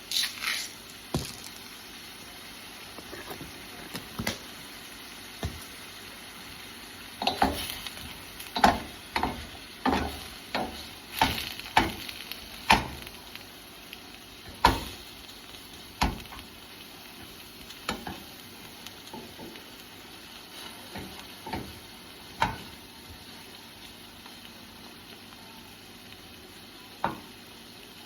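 Tomatoes sizzling steadily in a frying pan while a utensil stirs them, knocking against the pan in irregular clinks that come thickest in a busy run around the middle.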